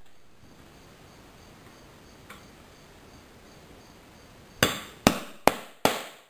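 Hammer striking the head of a bolt held upright as a drift, driving a steel T-nut into its hole in an MDF board: four sharp blows about half a second apart near the end, each with a short ring. A faint click comes a couple of seconds in.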